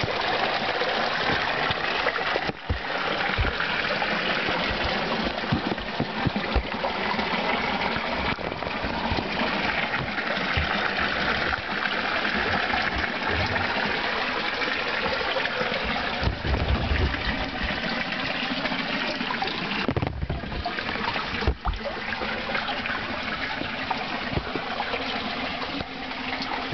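Warm-spring water pouring and trickling off a waterfall into a cave pool: a steady rushing and splashing, with a few low bumps along the way.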